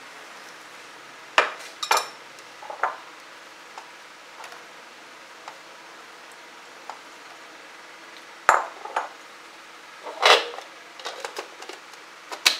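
A metal spoon clinking and scraping against a food-chopper bowl and a ceramic dish as chili paste is scooped out: a few sharp clinks scattered through, with a longer scrape about ten seconds in and light plastic clicks near the end as the chopper's lid is fitted.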